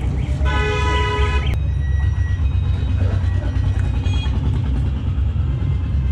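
Steady low engine rumble, with a horn sounding for about a second shortly after the start.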